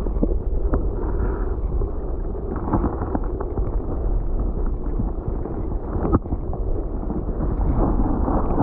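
Wind buffeting the microphone: a steady low rumbling noise with a few sharp knocks, the clearest about six seconds in.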